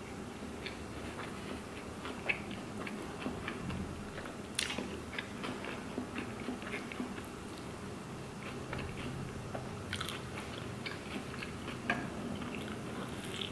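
Close-up mouth sounds of eating a burrito: steady chewing with many small wet clicks and a few louder crunches.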